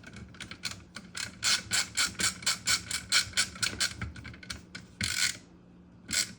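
Ratchet of a hand screwdriver clicking quickly, about four clicks a second, as a ground screw is driven in and tightened. A longer ratcheting rasp follows, then one short one near the end.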